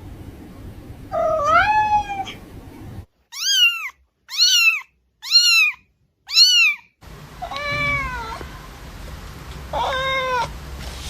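Cat meowing: one drawn-out meow, then four short, high-pitched meows about a second apart, then two more meows.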